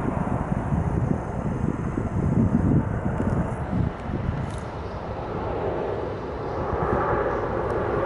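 Outdoor street background noise: a low, uneven rumble, with a distant engine growing louder near the end.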